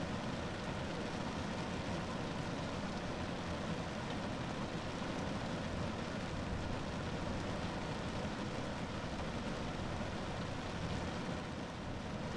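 Rain falling steadily on a car roof, a dense, even wash of drops with no let-up.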